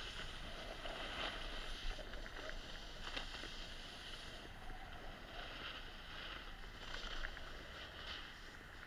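Snowboard sliding and carving over packed snow: a steady hiss and scrape that swells with each turn, with wind on the action camera's microphone.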